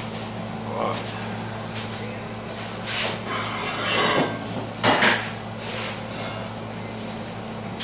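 A few knocks and clanks of steel pieces being handled and set down, loudest about five seconds in, over a steady low hum.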